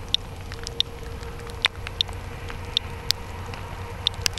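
Radiation Alert Inspector Geiger counter clicking at random intervals, about eight short, high clicks in four seconds. Each click marks one detected particle as the counter reads about 90 on wet, rain-soaked ground.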